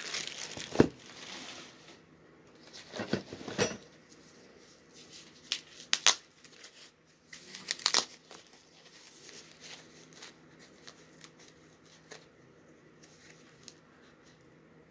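White paper wrapping crinkling and rustling as it is handled and pulled off an item by hand. The sharpest crinkles come about a second in, around three to four seconds, around six seconds and around eight seconds, with quieter fiddling between.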